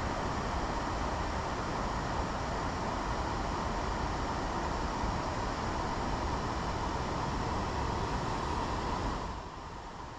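Steady rush of shallow river rapids, a dense even hiss of water over rock. About nine seconds in it drops to a quieter, softer rush.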